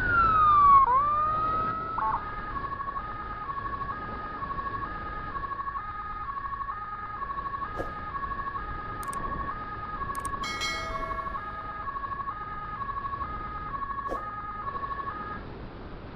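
Electronic emergency-vehicle siren: a wail that falls and rises again in the first two seconds, then switches to a hi-lo two-tone pattern alternating about once a second, which cuts off shortly before the end.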